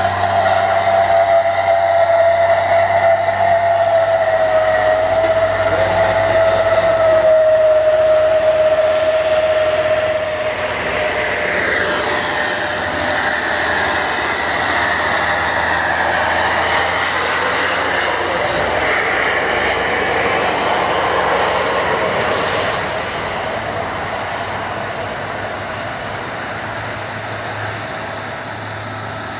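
Loaded diesel trucks climbing a wet hill road one after another, among them a Mitsubishi Fuso and a Hino box truck, engines working under load. A high whine slowly drops in pitch over the first ten seconds, and the sound grows gradually quieter toward the end.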